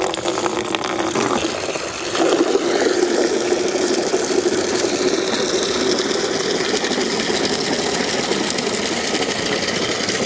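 Water from an outdoor tap pouring into a plastic bucket as it fills: a steady splashing rush that grows fuller about two seconds in.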